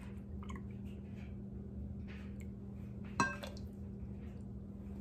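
A small glass measuring cup clinks once against the rim of a larger glass measuring bowl about three seconds in, ringing briefly, as half-and-half is poured into beaten-egg mixture. Faint handling sounds come before it.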